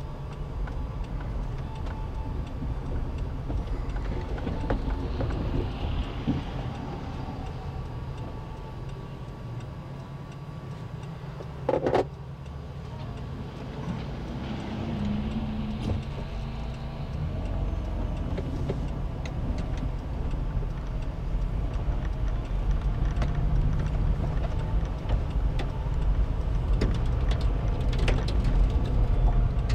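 Vehicle driving along a dirt and gravel road, heard from inside the cab: a steady low engine and tyre rumble that grows louder in the second half, with scattered light clicks. There is one short, louder sound about twelve seconds in.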